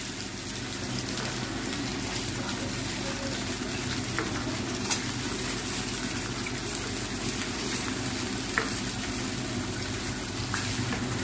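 Potato and pumpkin pieces frying in hot oil in a steel kadai, a steady sizzle, with a couple of faint clicks about five and eight and a half seconds in.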